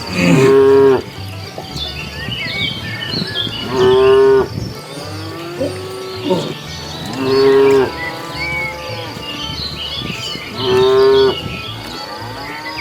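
Cows mooing: four long moos, each lasting about a second, spaced about three and a half seconds apart.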